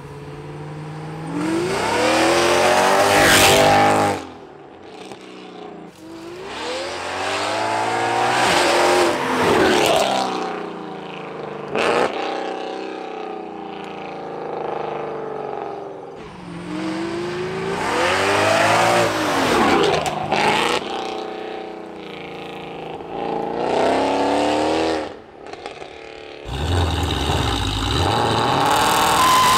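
Supercharged Mercedes E63 AMG's M156 6.2-litre V8 under hard acceleration. The revs climb and drop sharply several times over as it works through the gears. Near the end comes a loud deep rumble as the car rolls up close.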